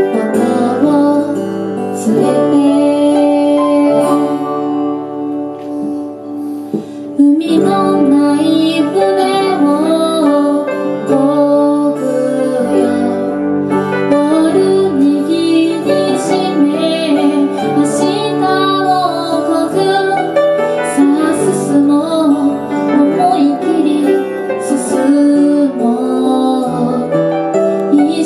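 Live acoustic song: a woman singing, accompanied by acoustic guitar and grand piano. The music drops softer about five seconds in, then comes back in louder a little after seven seconds.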